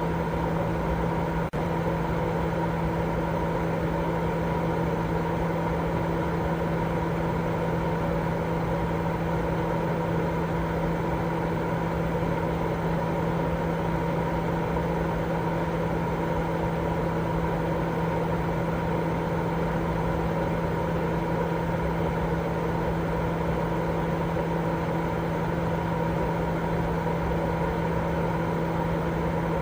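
Steady, unbroken white noise for baby sleep, heavier in the low and middle range, with a steady hum running under it. There is one brief dip about a second and a half in.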